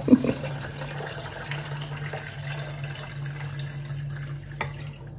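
Water pouring steadily into a container, most likely the water being added to the tigernuts and ginger before blending.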